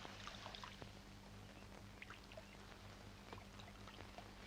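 Near silence: faint steady hiss and low hum, with a few faint ticks.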